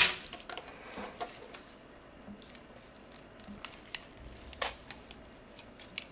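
Small parts of a cell phone being pried apart and handled: scattered light clicks and scrapes of plastic and metal, with a short loud rasp at the very start and one sharper click a little past the middle.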